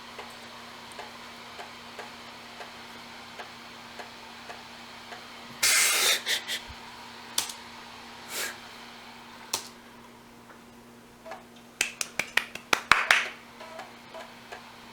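3.5-inch floppy disk drive writing, with soft regular ticks of the head stepping, a bit under two a second. Two clusters of louder, harsher grinding clicks come about six seconds in and again near the end. These are the sort of drive noises the user thinks may mean the read/write head needs cleaning.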